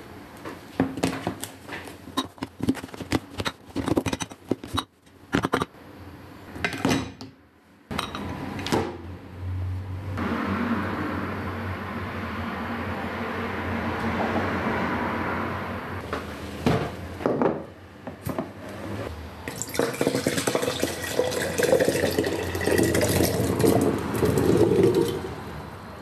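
Kitchenware clattering and knocking in quick irregular strokes. About eight seconds in, water starts running steadily from a kitchen tap into a sink. Later there is louder, uneven splashing as things are rinsed under the stream.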